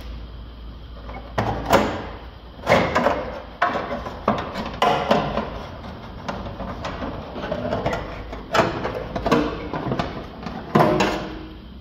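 A thin embossed metal heat shield is worked loose and pulled out of an engine bay. It scrapes and rattles against the engine parts in a string of sharp, irregular clatters.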